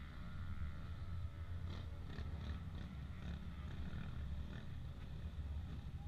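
Motocross dirt bikes running on the track, heard faintly as a steady low drone with some uneven higher engine sound.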